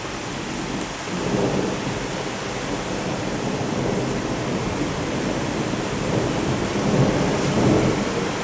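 Thunderstorm: steady rain hiss under rolling thunder, with the rumble swelling about a second in and again, louder, near the end.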